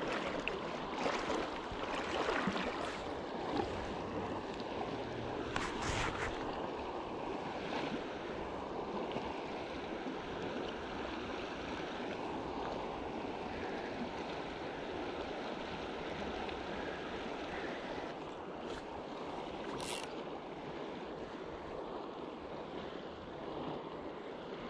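Steady rush of the Middle Provo River's shallow current flowing past a wading angler, with a few brief clicks in the first few seconds and again near the end.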